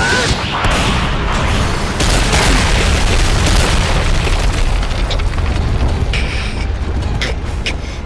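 Explosion and impact sound effects from an animated fight: a loud, continuous rumbling blast with heavy bass, with a few sharp hits near the end.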